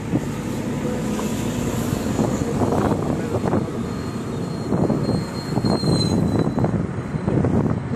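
Motor vehicle driving off and picking up along the road: steady engine and road rumble, with wind buffeting the microphone in uneven gusts.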